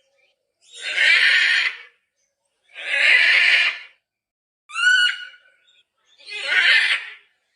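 Macaw giving loud, harsh squawks, three of them about a second long each, with a shorter call of clearer sliding notes between the second and third.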